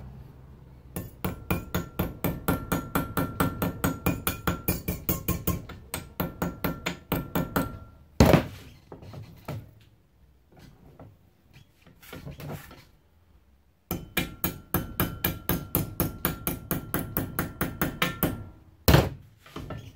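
A hammer tapping the edge of a thin sheet-metal strip clamped in a bench vise, about four quick strikes a second, with the metal ringing under the taps. The taps are turning the edge over into a slight curve. There are two long runs of taps, each ended by one heavier blow, with a pause of a few seconds between them.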